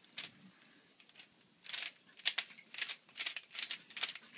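Rubik's cube being turned fast, its layers clicking and swishing in a quick irregular run of turns that picks up about a second and a half in.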